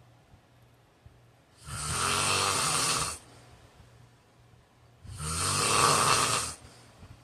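A man snoring: two long snores, each about a second and a half, roughly three and a half seconds apart, with quiet pauses between them.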